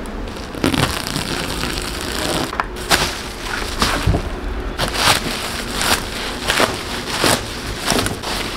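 Plastic packaging wrap crinkling and rustling in repeated bursts as it is pulled and torn off a kayak by hand.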